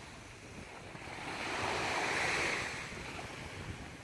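Sea waves washing on a beach, swelling about a second and a half in and easing off near the end, with wind buffeting the microphone.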